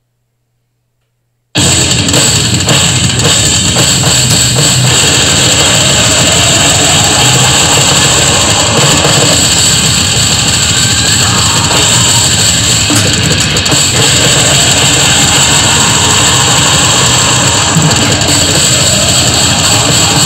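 An electronic drum kit played fast and hard along with a heavy rock backing track, with cymbals and bass drum. The music cuts in suddenly about a second and a half in and stays loud and dense.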